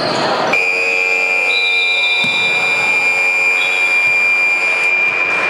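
Arena game buzzer sounding one long steady blast of about five seconds, starting about half a second in and cutting off suddenly: the horn marking the end of the second quarter.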